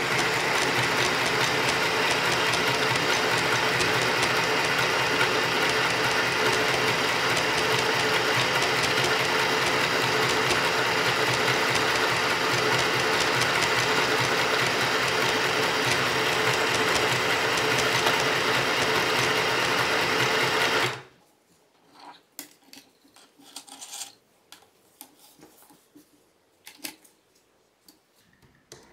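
Easymaxx compact sewing machine stitching, its small motor and needle mechanism running steadily for about twenty seconds and then stopping abruptly. A few faint, scattered clicks follow.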